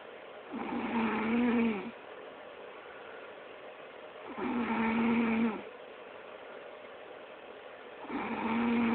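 Snoring: three snores, each a little over a second long and about four seconds apart, each a buzzing tone that rises and falls slightly.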